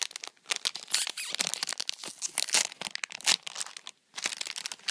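Clear plastic wrapping crinkling and tearing as hands unwrap a bar of soap: a dense, irregular run of crackles with a short pause about four seconds in.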